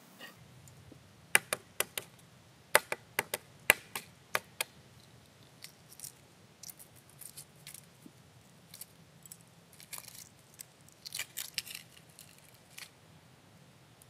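Hard-boiled egg shell being cracked and peeled by hand: a quick run of sharp cracks in the first few seconds, then a scatter of small crackles and snaps as the shell pieces are pulled away.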